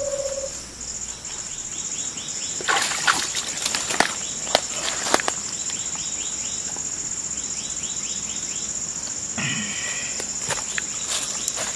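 A steady high insect drone, with scattered short splashes and rustles from a hand groping in the shallow muddy water and bank, mostly in the first half. A brief call comes about nine and a half seconds in.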